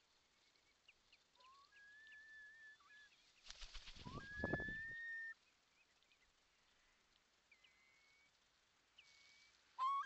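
Curlew calling: a whistle that rises and then holds a long level note, about 1.5 s in and again about 4 s in. Between them comes a burst of rapid wingbeats with low thumps close to the microphone, as a bird takes off from the nest. Another rising whistle starts right at the end, with faint higher chirps scattered throughout.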